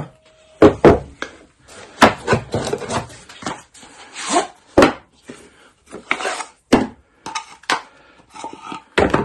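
Hand tools and their packaging being handled on a bench: irregular knocks and clatters with rustling and scraping between them, as boxed hand planes are set down and unpacked.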